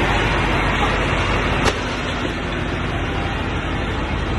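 Steady loud roar of a large fire scene, with a low hum running underneath. A single sharp crack about a second and a half in, after which the noise settles slightly lower.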